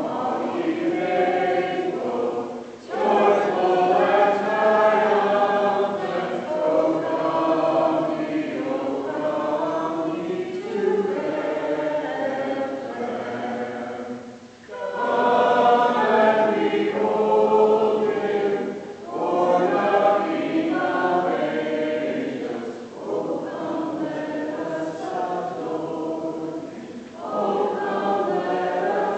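Church congregation singing a hymn together, line by line, with short breaks between phrases.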